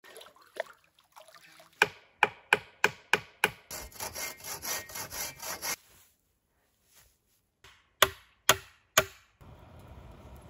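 Wood being worked with hand tools: six sharp knocks in quick succession, then a couple of seconds of fast sawing strokes through wood, then three more evenly spaced knocks.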